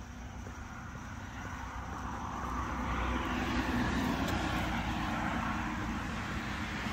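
Engine noise of a passing vehicle, swelling to a peak about four seconds in and easing only slightly after.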